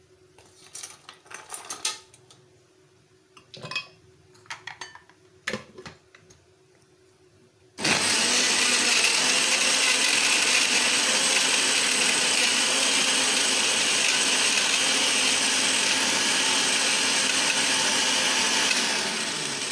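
A few scattered clinks and knocks as ice goes into a glass blender jar, then about eight seconds in the countertop blender starts and runs steadily and loudly for about eleven seconds, blending mango pulp, milk and ice into a milkshake, before it is switched off near the end.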